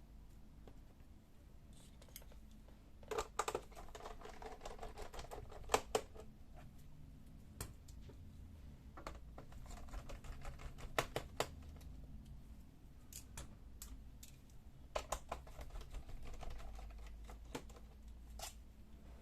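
Small clicks and taps of a screwdriver working the screws out of a plastic laptop back panel, coming in scattered clusters as each screw is turned and handled.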